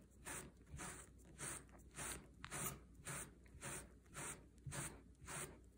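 Stiff-bristled brush stroked downward through a matted faux fur vest: a faint scratchy swish repeated about twice a second.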